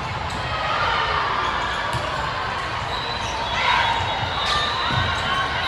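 Gym during a volleyball match: a steady hum of crowd and players, with balls thudding on the court floor every second or two.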